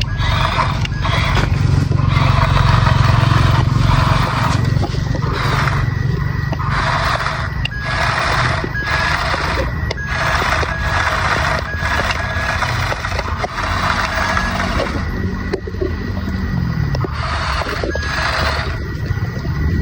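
Small electric motors of a remote-control toy excavator running in repeated bursts of about a second each, with sand scraping.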